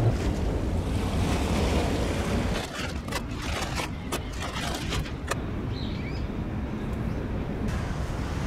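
Wind blowing on the microphone at the water's edge for the first couple of seconds, then a handful of sharp clinks as hard charcoal briquettes are set into a small metal grill.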